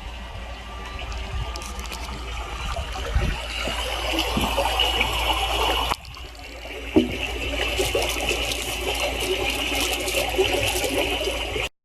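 A recording of trickling, running water played back through a small speaker. The sound dips out briefly about six seconds in and then cuts off suddenly.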